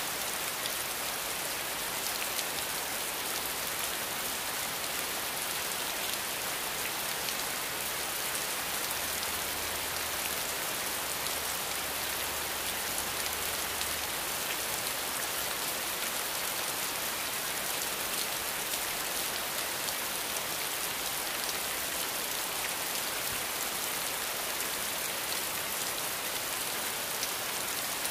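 A steady, even hiss like falling rain, unchanging throughout, with nothing else standing out. It stops abruptly at the end.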